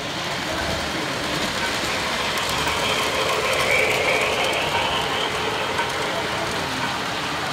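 Model freight train cars rolling past on the layout track: a steady rumble and rattle of wheels on rail, a little louder about three to five seconds in as the cars pass closest.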